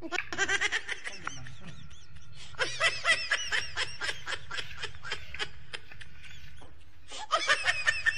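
Laughter: a quick run of ha-ha bursts, about three or four a second, coming in three spells, the longest in the middle.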